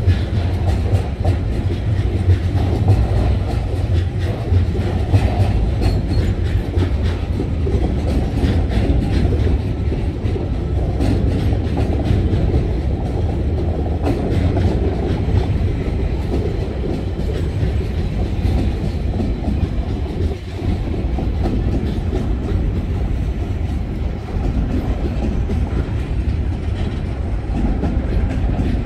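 Container flat wagons of a freight train rolling past: a steady rumble of steel wheels on the rails with rapid clickety-clack over the rail joints, the clicks busiest in the first half.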